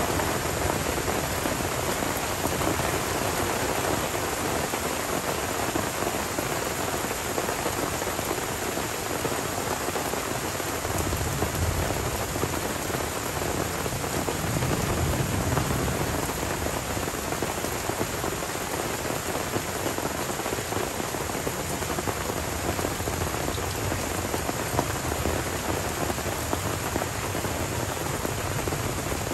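Steady tropical rain falling on forest and a wet dirt track, with a low rumble of rolling thunder about halfway through.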